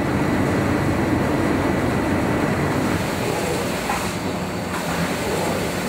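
Polythene film printing press and rewinding rollers running, a continuous mechanical rumble, a little quieter about four seconds in.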